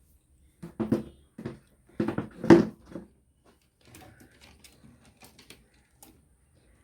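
Hard plastic knocks and clunks from the opened mini tower speaker's casing and control board being handled, several close together with the loudest about two and a half seconds in, then lighter ticks and clicks.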